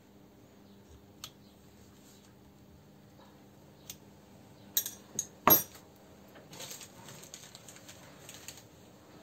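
Small metal parts being handled on a workbench: a few scattered clicks, then three sharp metallic clinks about five seconds in, the last the loudest, followed by a couple of seconds of lighter rattling, over a faint steady hum.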